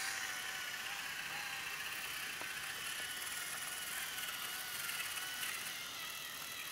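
Battery-powered toy train engine running on wooden track: a steady motor and gear whine, with a few light clicks from the track.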